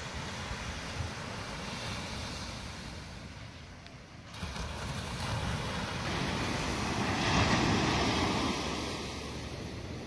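Ocean surf washing on a sandy beach. One wave swells to its loudest about seven to eight seconds in, then eases off.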